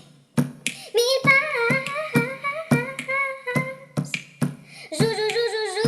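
A song: a high voice singing long, wavering notes over a steady beat of sharp clicks, about two a second.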